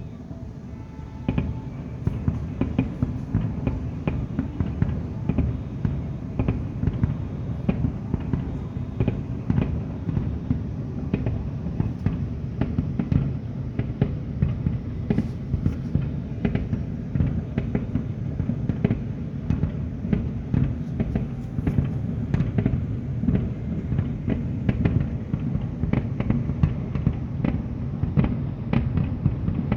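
Aerial fireworks display: a dense, continuous rumble of shell bursts with many sharp cracks, growing louder about a second in.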